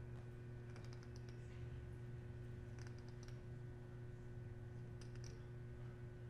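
Poker chips clicking together as a player handles them at the table, in short rattling clusters about every two seconds, over a steady low hum.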